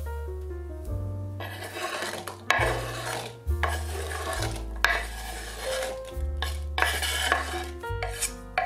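Diced apple being gathered by hand on a bamboo cutting board and slid off it into a wooden bowl, the cubes tumbling and clattering, with a knife blade scraping the last pieces off the board. Background music plays underneath.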